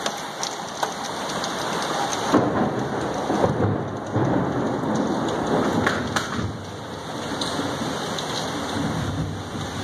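Heavy thunderstorm rain falling steadily, with low rolls of thunder rumbling in about two seconds in and again near the end.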